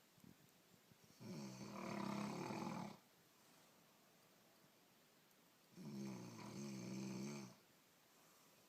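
A woman snoring: two long snores, each lasting nearly two seconds, about four and a half seconds apart.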